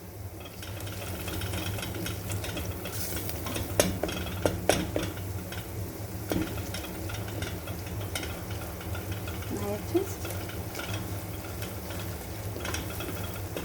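Onions and garlic frying in olive oil in a cooking pot, sizzling steadily while a spoon stirs them, clinking against the pot a few times. A steady low hum runs underneath.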